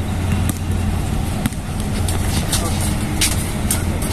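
Outdoor basketball court ambience: indistinct voices of players over a steady low hum, with scattered short high-pitched sounds from the play.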